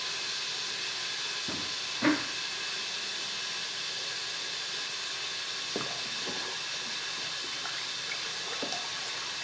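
Foaming homemade castor-leaf soap mixture in a plastic basin fizzing with a steady hiss of bursting bubbles, just after cold water has been poured in to shock-cool it. A light knock comes about two seconds in.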